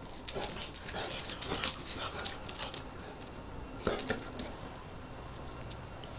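Adult Saint Bernard and a puppy playing: quick clicks and scuffs of paws and claws on paving, busiest in the first few seconds and again about four seconds in, then quieter.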